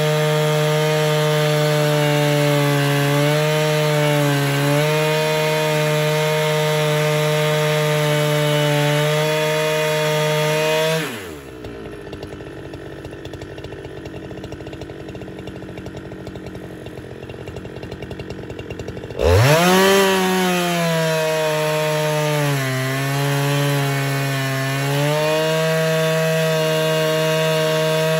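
Husqvarna 395XP two-stroke chainsaw on an Alaskan mill ripping a fir log at full throttle. About eleven seconds in the revs drop and the saw idles for roughly eight seconds, then revs sharply back up and settles into the cut again.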